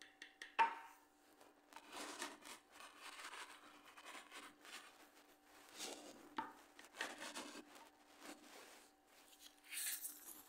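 A knife sawing through a baked, cheese-topped bread bake in a glass baking dish: the crust rasps in stretches as the blade works, with sharp clicks of the blade against the glass, the loudest about half a second in.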